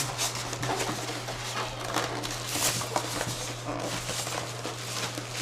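Stand-mixer packaging being handled: cardboard and packing material rustling, scraping and crackling in short irregular bursts as the parts are worked loose from the box.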